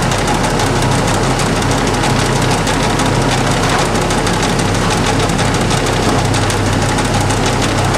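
1966 LeBlond 1610 Servo Shift heavy-duty engine lathe running under its 20 HP motor drive: a steady low hum with a fast, even ticking rattle. Near the end a whine rises in pitch as the spindle speeds up.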